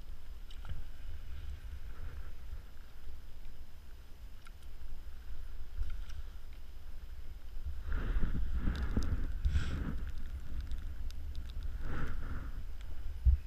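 Wind rumbling on the microphone while a perch is lifted from an ice hole and handled, with rustling and handling noises of gloves, clothing and a plastic bag about eight seconds in and again around twelve seconds. A short thump comes near the end.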